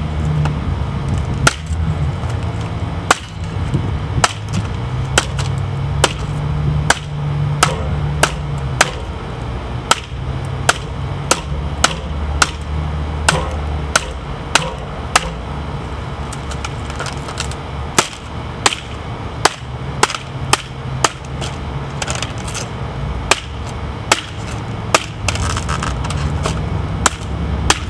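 Buck 632 fixed-blade knife chopping into a hard, springy dry palm-frond stalk lying on a wooden stump. Many sharp chops come about one to two a second, unevenly spaced, with short pauses.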